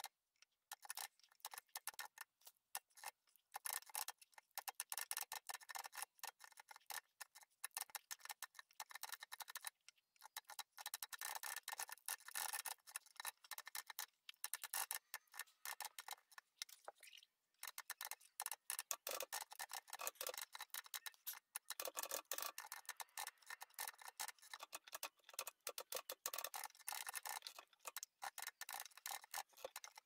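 1928 Olivetti M20 manual typewriter typing rapidly: quick clicks of the type bars striking the platen, stopping briefly a few times.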